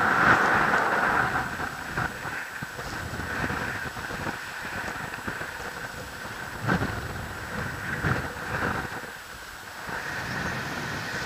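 Wind buffeting the camera microphone of a paraglider in flight: a gusty rushing noise with low rumbles, loudest in the first second or so.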